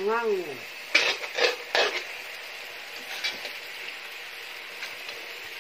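Metal ladle scraping and stirring in a large iron wok, with three sharp scrapes about a second in and then only faint clicks. A person's voice gives a short rising-and-falling call at the very start.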